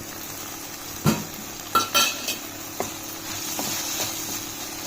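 Sliced onion, bell pepper, tomato and garlic sizzling in olive oil in a pan while being stirred, the utensil knocking against the pan several times, loudest about one and two seconds in.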